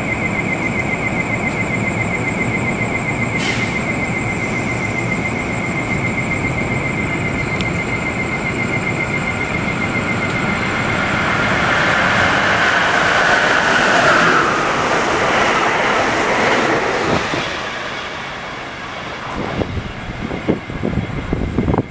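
Amtrak passenger train hauled by an ACS-64 electric locomotive running through the station at speed. It is loudest about 12 to 16 seconds in, then fades, with wheels clicking over the rails near the end. A steady high pulsing squeal sounds throughout.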